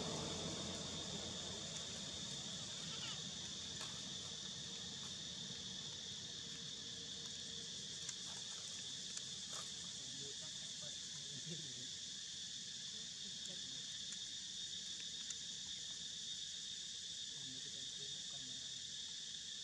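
Insects chirring in a steady, unbroken high-pitched drone, with a few faint ticks.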